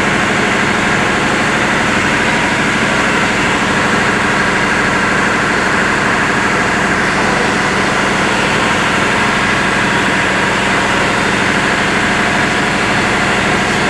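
A running engine droning steadily at a constant speed, loud and unchanging throughout.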